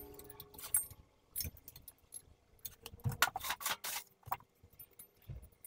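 Metal hand tools and small parts clinking and rattling as a wrench is handled and set down, with scattered light clicks and knocks. The clinking is busiest about three to four seconds in.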